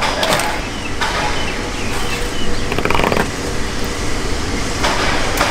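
Steady low rumble of a fishing boat's engine running. A few short bursts of clatter and rustle come over it, near the start, about three seconds in, and near the end, as fish are handled on ice.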